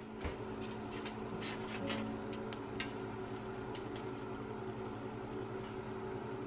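Oven running with a steady low hum, with scattered light clicks.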